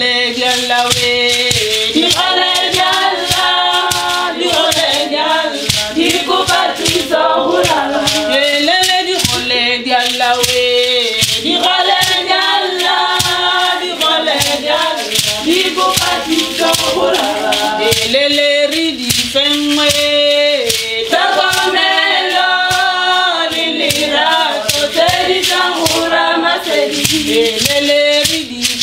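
A group of voices singing a Setswana traditional song in chorus, phrase by phrase, over the steady beat of dancers' ankle rattles.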